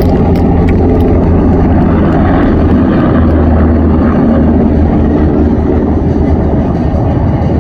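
Loud, steady noise of military aircraft in flight.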